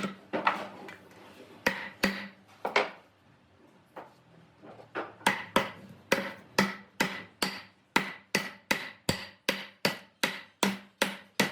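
Hammer blows in a woodworking shop: a few scattered strikes, a short pause, then a steady run of about two to three blows a second, each with a brief ring.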